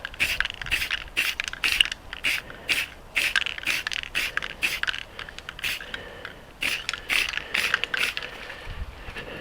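Aerosol spray-paint can being shaken, its mixing ball rattling in short sharp strokes about two a second, with a brief lull about six seconds in.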